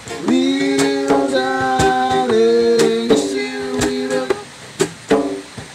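Acoustic guitar playing with a man singing, mostly long held notes, then shorter phrases near the end.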